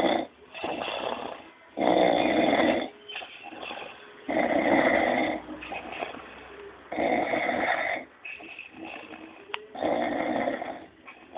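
A man snoring heavily: four loud snores, each about a second long and two to three seconds apart, with quieter breathing sounds between them.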